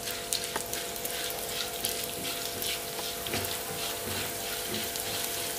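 Whole coriander seeds, cumin and black peppercorns sizzling in a little hot oil, with a steady hiss and many small crackles as the spices roast for a masala. A spatula stirs them in the pan.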